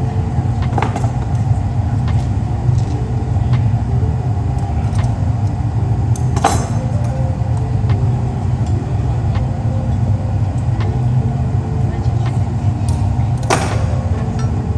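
Glass furnace running with a loud, steady low hum. A few sharp clinks stand out, about a second in, halfway through and near the end.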